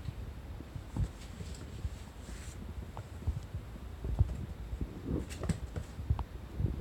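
Scattered soft taps, scuffs and rustles of a small kitten clambering over a person's lap, its paws and claws on denim and cloth, with light handling bumps.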